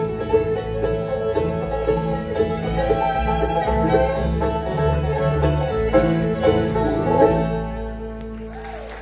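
A live bluegrass band plays an instrumental ending after the last sung line: banjo, fiddle, mandolin, acoustic guitar and upright bass. Near the end the playing stops and the last chord dies away.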